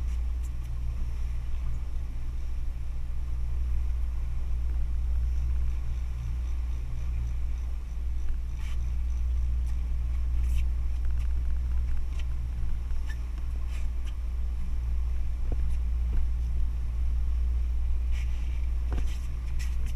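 Boat engine running steadily, a low drone, with a few light clicks and knocks scattered through it.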